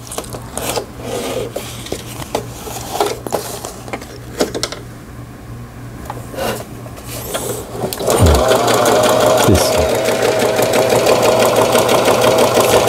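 A repaired Singer 3827 home sewing machine sews a zigzag test stitch. Light scattered clicks and fabric handling come first, then about eight seconds in the machine starts and runs at a steady speed with an even, fast needle rhythm.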